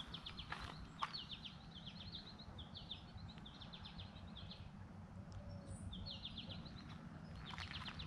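Songbirds singing: quick runs of short, high chirping notes repeated every second or two, over a faint steady low hum.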